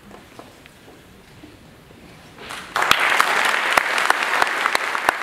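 Audience applause that starts about two and a half seconds in and quickly becomes loud, with sharp single claps standing out close by.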